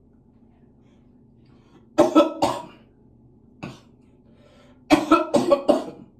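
A man coughing hard in fits: two coughs about two seconds in, a single one a second or so later, then a run of about five near the end. The coughing is staged, faked for a coughing-up-blood prank.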